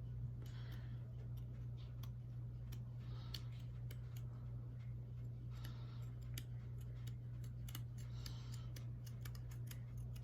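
Scissors slowly cutting thin metal diamond-plate sheet for a scale model: several short snipping passes with small sharp clicks, over a steady low hum.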